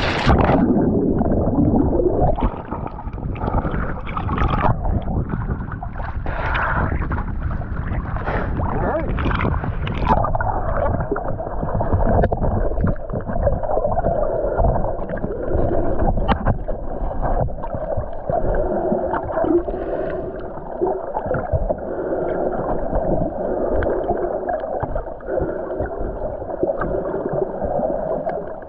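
Muffled underwater sound from a camera below the surface: gurgling, splashing water, joined about halfway in by a steady low drone.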